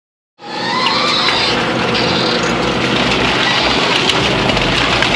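Heavy industrial shredding machinery running under load, its engine drone overlaid with constant crunching and cracking of material being torn apart. It starts abruptly about half a second in and stays steady and loud.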